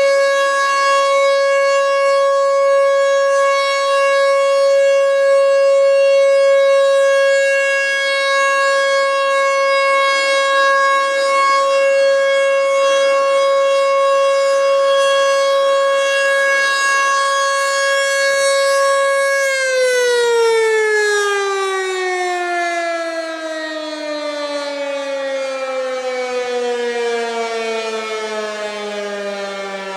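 American Signal Tempest T-128 single-tone, 8-port warning siren sounding its steady alert tone, then winding down with a steadily falling pitch about twenty seconds in.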